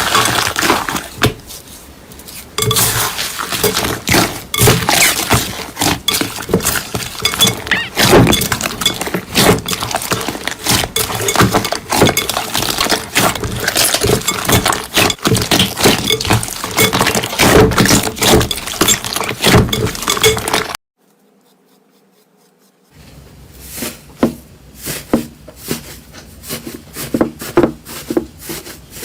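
Slime being pressed and squished by hand, giving a dense run of crackling clicks typical of crunchy slime. The crackling stops abruptly about two-thirds of the way through, and after a couple of seconds of silence quieter clicking starts again.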